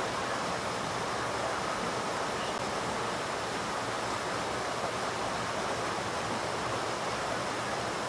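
Small fast-flowing stream rushing over rocks: a steady, unbroken rush of water.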